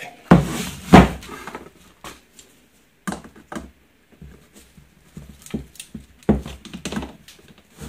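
Pincers prying and scraping at the rim of a thin aluminium drum lid: sharp metal knocks and scrapes, the two loudest within the first second and another cluster near the end.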